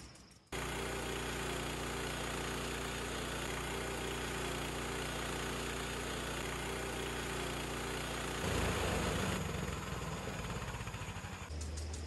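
Harbor Freight portable band sawmill's gas engine running steadily as the band blade is pushed through a log, squaring it into a cant. The sound changes abruptly and gets louder about eight and a half seconds in.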